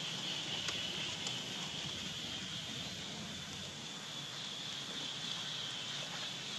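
Steady outdoor ambience: a continuous high, even hum over a low background hiss, with a few faint ticks.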